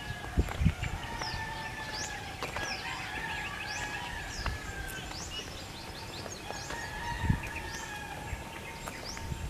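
Outdoor ambience of small birds chirping over and over in quick, high notes, with a steady tone held for a few seconds at a time and a few soft low thumps.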